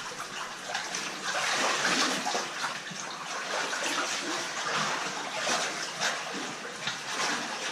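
Water in a shallow cave stream running and splashing unevenly, with irregular surges of splashing.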